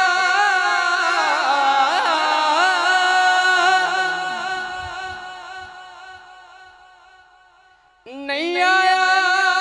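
Male voice singing a Punjabi devotional kalam into a microphone, holding one long wavering note that fades slowly away over several seconds. Just after eight seconds in, the voice comes in again with a new phrase.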